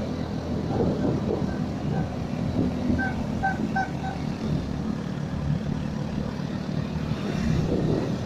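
A motorcycle engine running steadily on the move, with road noise. There are a few short, high beeps about three seconds in.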